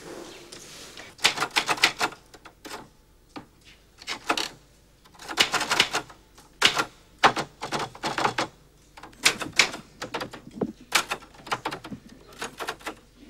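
Typewriter being typed on: keys struck in quick runs of several strokes, with short pauses between the runs.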